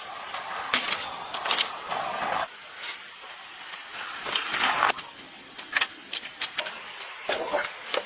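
Irregular sharp clicks and knocks, a dozen or so, over a faint steady hiss.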